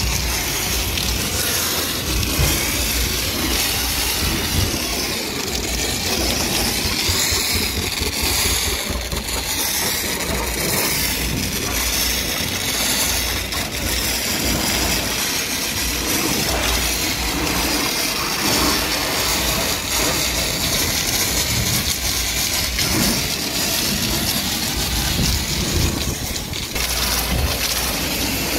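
Foam lance spraying thick snow foam onto a car's bodywork: a steady hiss that does not let up, over a low machine drone.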